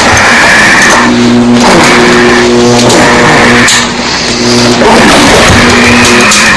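Loud layered horror sound effect of a monster coming to life: repeated high screeching cries over a low droning growl.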